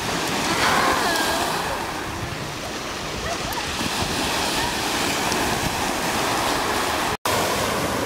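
Ocean waves breaking and washing up a pebble beach, a steady hiss of surf over the stones. The sound cuts out for an instant near the end.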